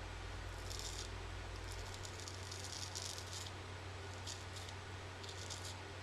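Freshly honed JA Henckels straight razor scraping through lathered stubble in short strokes, roughly one a second, each a brief crisp rasp of whiskers being cut.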